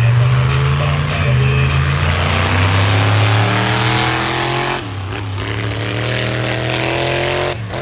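A racing vehicle's engine accelerating hard, its pitch climbing steadily, dropping briefly about five seconds in as if at a gear change, then climbing again before falling away near the end.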